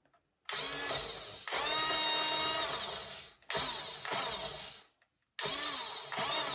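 Toy RC tank's small electric motor and gearbox whirring in four bursts of one to two seconds each, starting and stopping abruptly as the turret is traversed.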